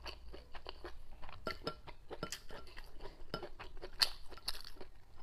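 Close-up eating sounds: wooden chopsticks clicking and scraping against a ceramic bowl held at the mouth, mixed with chewing and slurping of hot pot food. The clicks are irregular, and the sharpest comes about four seconds in.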